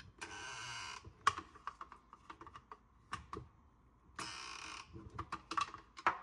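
Hands handling the plastic filter housings of a reverse osmosis unit: two brief rubbing sounds of hand or plastic against plastic, with scattered light clicks and taps.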